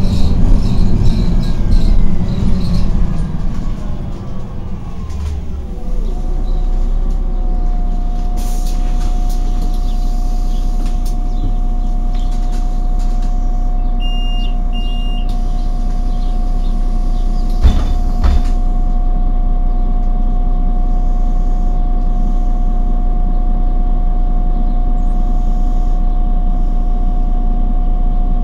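City bus heard from inside, slowing down with a falling whine from its drivetrain, then standing still with the engine idling and a steady whine. Two short beeps come about halfway, and two thumps follow a few seconds later.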